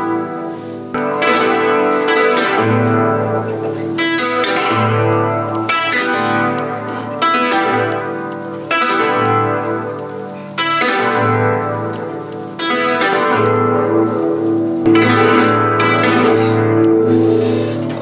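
Nylon-string classical guitar, held loosely by the neck and swung while all six strings are plucked in turn with the index finger, imitating a ringing church bell: one plucked attack about every one and a half to two seconds, each ringing out and fading before the next.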